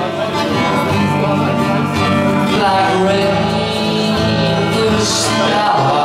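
Acoustic guitar played under a long held melody line that bends slightly in pitch.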